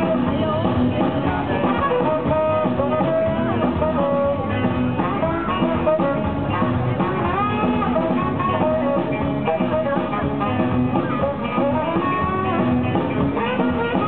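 Live band playing Malian desert-blues rock: electric guitars over a drum kit, with a saxophone playing a bending melody line.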